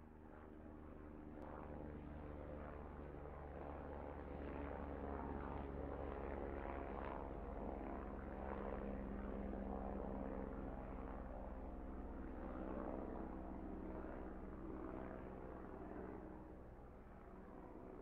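Helicopter rotor and engine running steadily. The sound grows louder over the first few seconds, holds through the middle, then eases off a little near the end.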